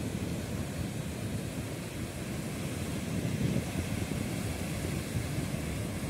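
Strong wind buffeting the microphone at sea, an uneven low rumble.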